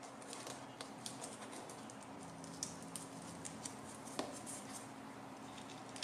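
Light scratching and small ticks of a pick prying paper masking plugs out of the holes in a painted metal base, with gloved fingers handling the base and the bits of paper; one sharper tick about four seconds in.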